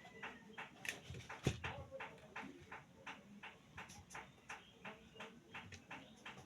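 Steady rhythmic ticking, about three ticks a second, with one louder knock about one and a half seconds in.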